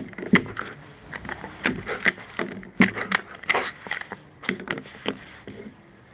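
Belgian Malinois at play with a ball: a run of irregular short clicks and knocks, one or two a second, dying away near the end.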